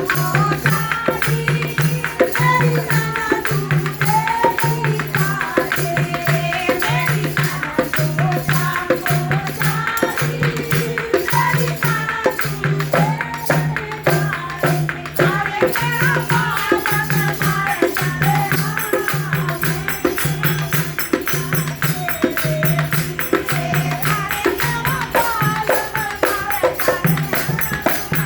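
Haryanvi devotional folk song (bhajan): a voice singing over a steady, fast, jingling percussion beat with a repeating low pulse.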